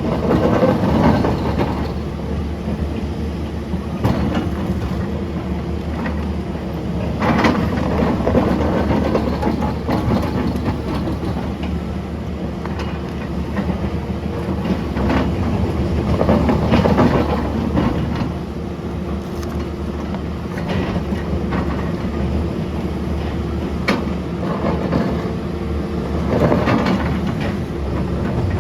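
Large hydraulic excavator's diesel engine running under load, swelling louder every several seconds as the ripper works, with scattered knocks and scraping of the ripper tooth in the ground.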